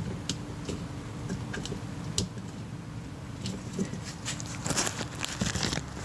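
Scattered small clicks and rustles of gloved hands pushing wire connectors onto the terminals of a golf cart's forward/reverse switch, with a quick run of clicks near the end.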